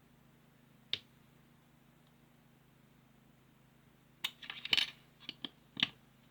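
Small plastic building-block pieces clicking and rattling as a figure is assembled: one sharp click about a second in, then a quick cluster of clicks and rattles near the end.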